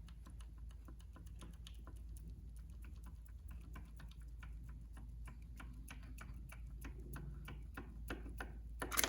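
Light, irregular metal clicks and taps, several a second, as a stuck cast-iron main bearing cap is worked loose off its dowel pins, with a louder clack near the end.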